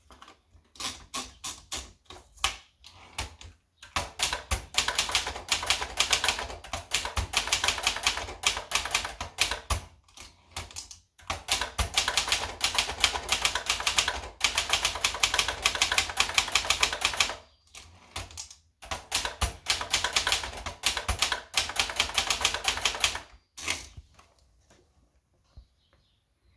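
Vendex 500T typewriter being typed on: rapid runs of key strikes clacking against the platen, in several long stretches broken by short pauses, stopping shortly before the end.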